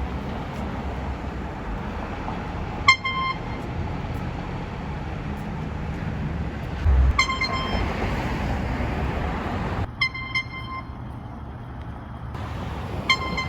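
Handheld air horn giving short, piercing toots, about one every three or four seconds, over steady street traffic noise.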